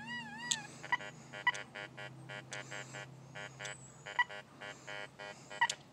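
Fisher F75 SE metal detector sounding off as its large search coil is swept over a big hand-cut iron nail with a coin beside it: a brief warbling tone, then a rapid string of short electronic beeps, a few a second.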